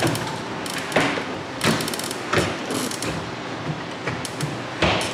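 Cabinet drawers being pushed into a garage base cabinet on full-extension ball-bearing glides: a running rattle of the slides with several sharp knocks as the drawers meet the cabinet.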